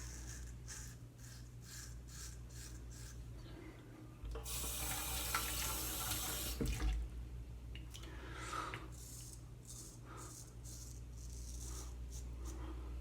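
A Koraat straight razor scraping through lathered stubble in a run of short, quick strokes. A tap runs for about two seconds near the middle, then the strokes resume.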